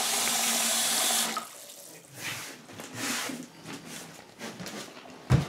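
Kitchen tap running steadily, shut off about a second in; then soft handling noises and a thump near the end.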